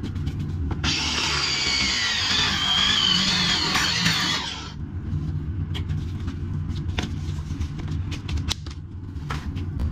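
Power tool cutting at the old toilet collar fitting in the sewer pipe. It runs in one long burst of about four seconds starting about a second in, with a wavering squeal in it, then gives way to scattered knocks and scrapes.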